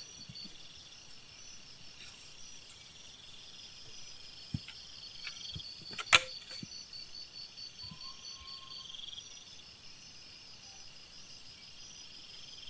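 Night insects chirping in a quick, even pulse, with a buzzing trill fading in and out every few seconds. A few faint ticks, and a single sharp click about six seconds in.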